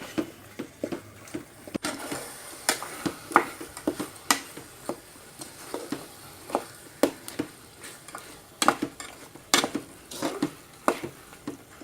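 Grated coconut and jaggery being stirred in a pan on the stove while the jaggery melts: a utensil scrapes and knocks irregularly against the pan over a faint sizzle.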